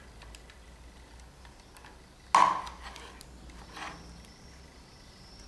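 Small metal parts of a tape binder's head being handled while its spring is fitted: faint clicks and one sharper metallic knock about two seconds in.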